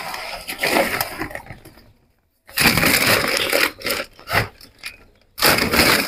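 Woven plastic feed sacks rustling and crackling as they are pulled and shifted by hand, in loud irregular bursts with a short break about two seconds in.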